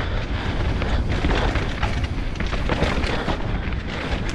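Enduro motorcycle being ridden hard over a rocky trail: engine running under wind rumble on the bike-mounted microphone, with many quick knocks and rattles from the bike over rocks.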